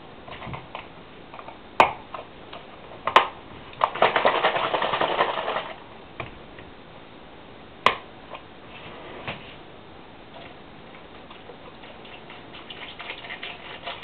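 Breakfast things being handled on a tabletop: several sharp knocks as items are moved and set down. About four seconds in comes a burst of rapid small ticks lasting nearly two seconds, with lighter clicks near the end.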